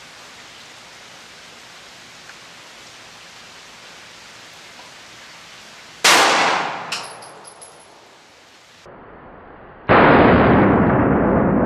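A Glock 19 firing one Underwood 9mm +P+ 115-grain round into a ballistic test block: a sharp shot about six seconds in that echoes away over a couple of seconds, with a thin high ring after it. About ten seconds in the shot plays again slowed down, as a lower, drawn-out blast that fades slowly.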